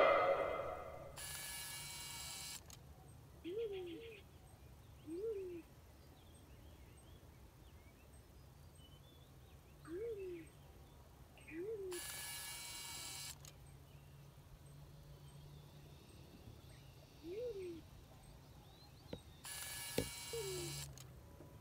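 Black-chinned fruit dove cooing: about seven short, low coos at uneven gaps, each rising and then falling in pitch, one a quick double. Three stretches of soft hiss-like noise, each over a second long, come between them, with faint high chirps of small birds.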